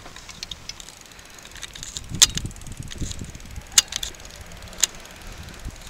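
Bicycle ride noise: rattling and scattered sharp clicks under a low rumble, with three loud clicks about two, four and five seconds in.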